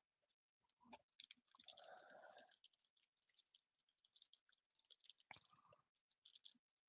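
Faint crinkling and clicking of foil trading-card pack wrappers being handled in the hands, with a short rustle about two seconds in and a sharper click about five seconds in.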